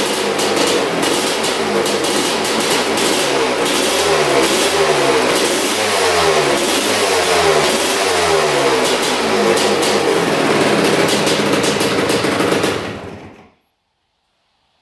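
1983 Honda CR250R's single-cylinder two-stroke engine running on the stand, revved up and down over and over, then shut off about 13 seconds in. It is running well, its carburettor dialed in.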